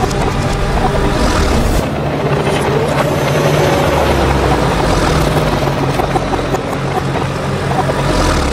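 A loud, steady engine-like mechanical noise that cuts off suddenly at the end.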